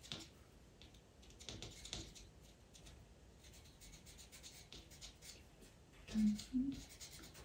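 A pastel pencil scratching softly across textured PastelMat paper in short, repeated strokes, flicking in fur hairs.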